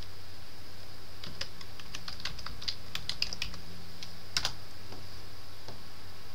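Computer keyboard typing: a quick run of keystrokes, then one louder click about four seconds in, over a steady low hum and a faint high whine.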